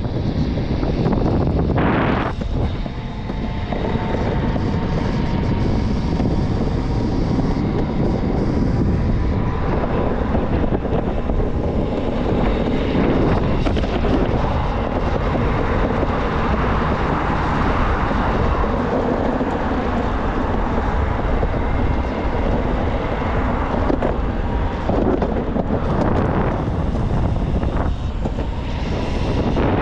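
Steady rushing noise of wind buffeting the microphone and wheels rolling over pavement while riding an electric skateboard, with a faint steady whine in the first several seconds.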